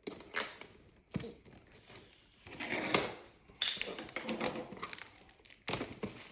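Cardboard and plastic packaging of a Pokémon card box being handled and unpacked: rustling with scattered clicks and light knocks.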